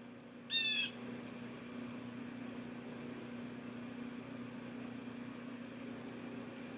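A blue jay gives one short call about half a second in, then a steady low hum continues.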